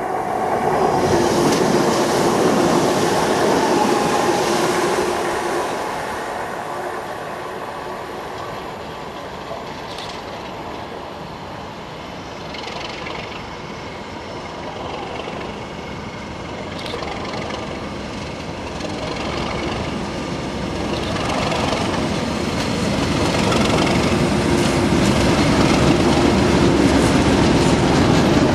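Colas Rail Class 37 diesel locomotives, with their English Electric V12 engines, approaching and passing on a test train. The sound is loud for the first few seconds, dips, then swells as the train nears, ending with the loco engine running and the coaches' wheels clattering over the rails.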